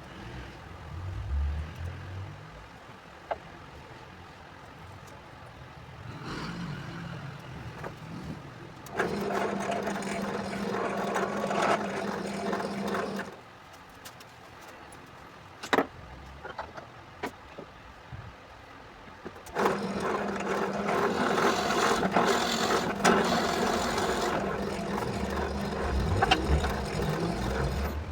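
An electric woodworking power tool runs steadily on wood in two spells, the first about four seconds long and the second about eight, with a few light knocks in the quieter stretch between them.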